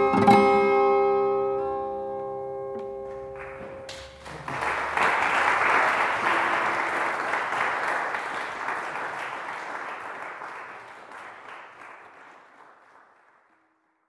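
Acoustic steel-string guitar strums its closing chords, which ring and die away; about four seconds in, audience applause breaks out and gradually fades to silence near the end.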